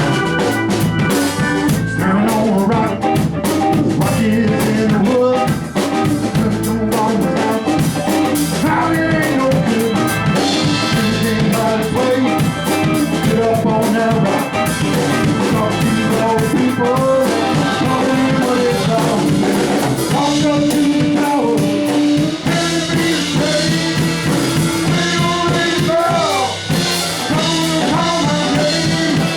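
A band playing blues-rock with a drum kit, loud and steady throughout.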